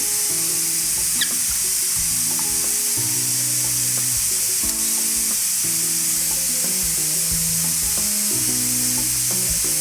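Steady sizzling hiss of food cooking on the stove, under background music with slow, stepped low notes.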